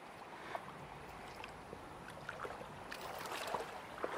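Faint, steady rush of a small river flowing over rocks, with a few light scattered clicks.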